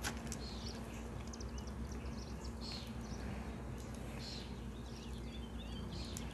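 Small birds chirping and twittering in short scattered calls over a steady low hum, with one sharp click at the very start.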